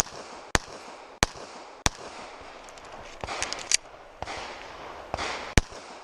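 A Glock pistol fired in a quick string: four shots about two-thirds of a second apart, a gap with lighter clicks and one weaker report, then another sharp shot near the end.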